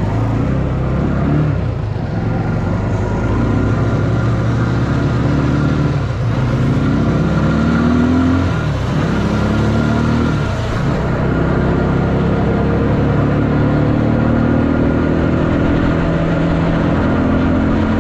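Engine of a homemade off-road tricycle ATV running while driven, its pitch rising and falling with the throttle for a few seconds mid-way, then holding steadier.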